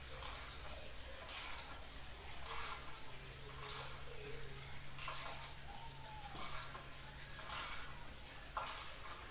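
A hand tool worked in short, rasping strokes, eight of them about a second apart.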